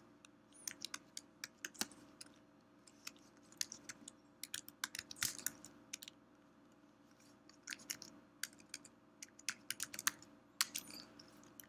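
Keystrokes on a computer keyboard, typed in short bursts of clicks with brief pauses between them.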